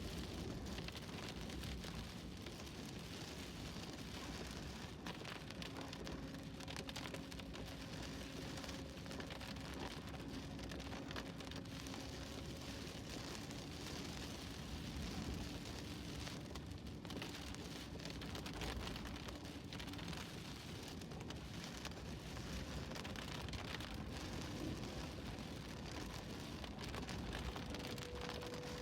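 Rain on a moving vehicle: a steady hiss of rain and wet road noise, with a faint hum that fades in and out.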